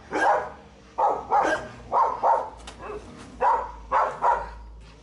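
A dog barking repeatedly in short barks, often two close together, about once a second.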